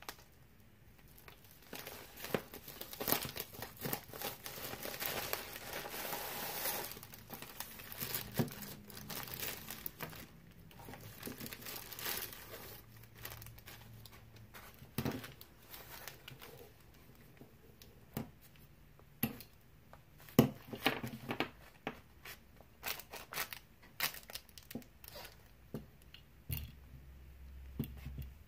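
A plastic bubble mailer and the plastic bag inside it being crinkled and torn open by hand, with a dense spell of crinkling early on. After that come scattered sharp clicks and rustles as a small plastic-and-metal tripod with a phone clip is handled.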